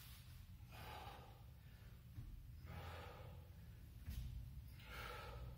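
A man's faint, effortful breathing during an ab exercise: about five short, forceful breaths out, roughly one a second, each timed to tensing the abs.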